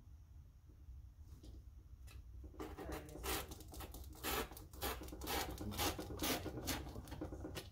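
Rotary cutter run along a metal ruler, its blade slicing through copy paper: a run of short strokes, about two a second, starting about two and a half seconds in.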